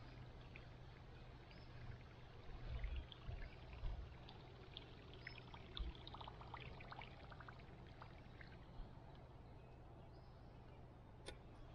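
Faint watery gurgling and splashing of a Whopper Plopper topwater lure being reeled in toward the boat, its spinning tail churning the surface, with scattered short ticks.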